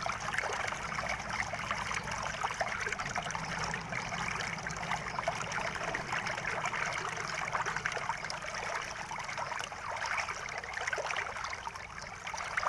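Steady trickling and splashing of shallow water.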